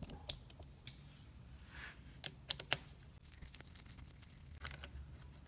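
A T30 Torx screwdriver working a terminal screw loose on a 12 V AGM battery post gives faint, irregular metal clicks and ticks. A small cluster comes about two and a half seconds in and another near the end.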